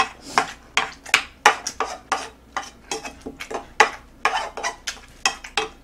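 A spoon scraping and clinking against a black frying pan, about three strokes a second, scooping up the jjapaghetti noodles left in it.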